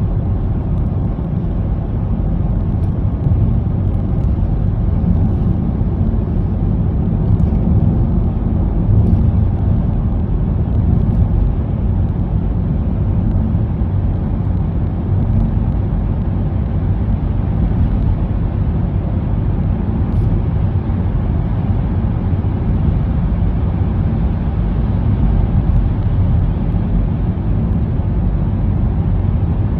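Steady low rumble of a car driving at cruising speed, heard from inside the cabin: tyre and engine noise with no change in pace.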